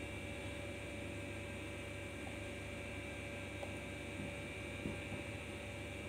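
A steady hum with a faint, thin high whine, and a few soft knocks as a wooden ladle stirs thick karhi in a clay pot.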